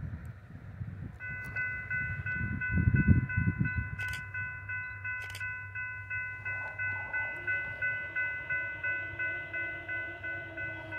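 Railroad grade-crossing bell ringing at about two strokes a second for an approaching train. From about seven seconds in, a locomotive horn sounds faintly in the distance. A gust of wind rumbles on the microphone a few seconds in.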